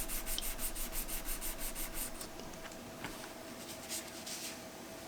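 Quick back-and-forth rubbing strokes by hand, about five a second, that stop about two seconds in, followed by a few light scrapes.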